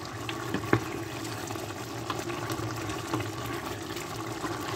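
Pot of yogurt chicken curry cooking on the stove: a steady watery simmer, with a few light clicks of a utensil against the pot, the clearest about a second in.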